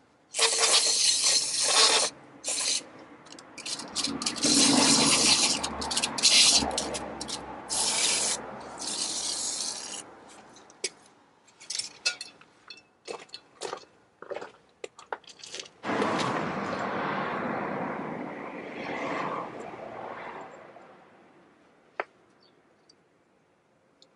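Aerosol cleaner sprayed into an axle tube and wheel bearing bore in a string of loud hissing blasts, some long and some short, over the first ten seconds or so. After a pause comes a longer, duller rushing hiss, and a single sharp click near the end.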